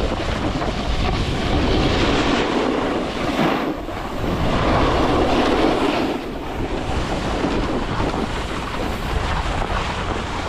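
Wind rushing over an action camera's microphone while a snowboard slides over packed snow, a steady rushing noise that swells twice in the middle as the rider turns.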